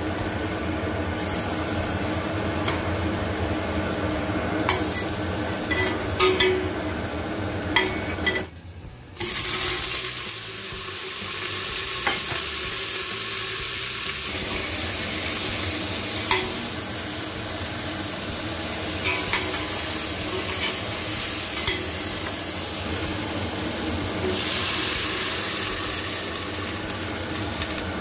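Beef chunks and ginger slices sizzling in a hot stainless steel pot, with scattered clicks of metal tongs stirring them.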